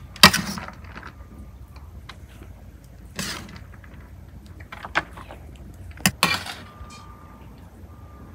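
A metal spoon scraping and knocking against metal pans as rice is ladled from a pan into a stuffed lamb's cavity, with four sharp scrapes a second or more apart, the first the loudest.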